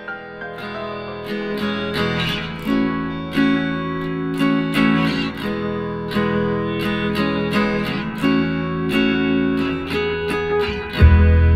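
Background music led by plucked and strummed acoustic guitar, a quick run of picked notes, with a deep bass line coming in near the end.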